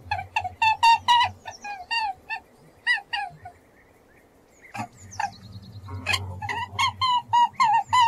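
Rabbit squealing: a rapid series of short, high-pitched squeals, several a second, that breaks off for about a second and a half midway and then starts again.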